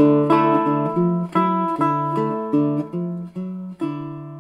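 Acoustic guitar music: a run of chords, changing several times, the last struck a little before the end and left to ring and fade.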